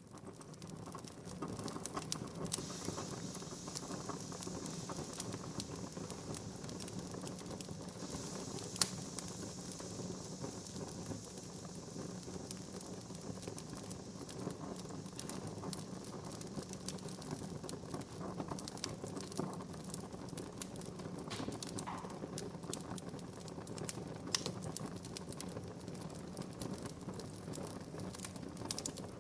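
Wood fire burning in a fireplace: constant crackling and small pops of the burning logs over a low steady hiss, with one sharper pop about nine seconds in.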